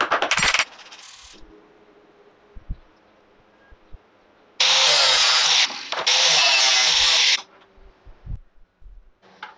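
Stick-welding arc on square steel tubing, a loud sizzling crackle in two runs of about one and one and a half seconds with a short break between. A brief harsh rasping burst right at the start, and a few soft knocks.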